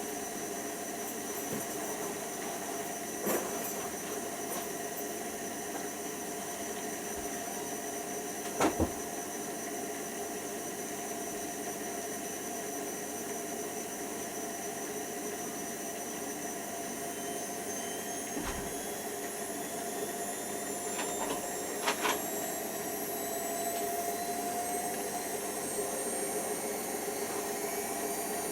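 Hoover Nextra HNWL7146 washer dryer running, with a steady motor whine that rises slowly in pitch in the second half, and a few short knocks.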